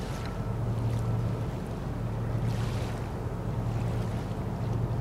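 Steady low drone of marine diesel engines from the tugboats towing a cargo ship, heard across open water, with soft gusts of wind on the microphone.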